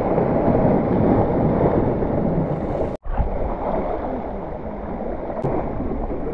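Seawater sloshing and surging close to the microphone, a dense steady rush of water noise, broken by a sudden brief gap about three seconds in.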